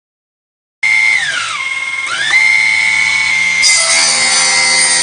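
A mini electric table saw's small motor and steel blade start abruptly with a high whine about a second in. The pitch sags and recovers once. From about midway a harsher hiss and a lower buzz join in as the blade cuts into a workpiece.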